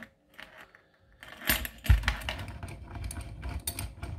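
Padlocks and keys being handled: quiet at first, then about a second and a half in a run of irregular metallic clicks and rattles, with a heavy thump soon after, as of a lock set down.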